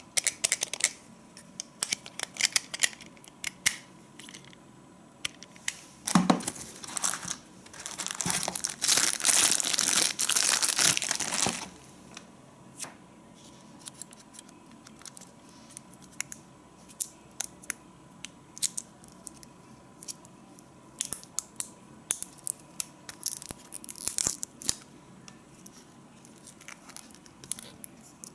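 Plastic packaging crinkling and rustling while small plastic shaver parts are handled, with light clicks and taps throughout. A louder stretch of crinkling lasts about four seconds in the middle.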